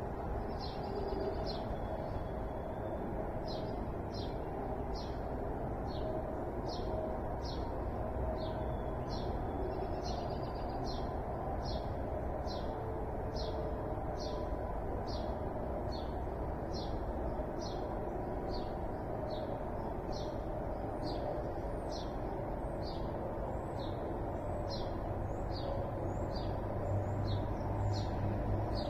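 A songbird repeating one short, sharp chirp about three times every two seconds, with higher, more varied bird calls joining near the end, over a steady low background rumble.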